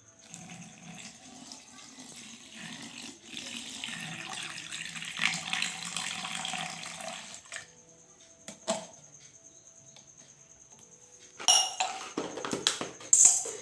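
Water pouring from a container into a plastic bottle packed with sand. It runs for about seven seconds, growing louder, then stops. A few knocks and clatter of handling follow near the end.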